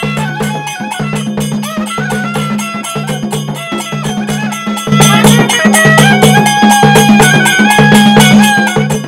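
Kerala temple procession music: a reed pipe plays a stepping melody over a steady low drone, with quick, evenly paced percussion strikes. The ensemble gets louder about five seconds in.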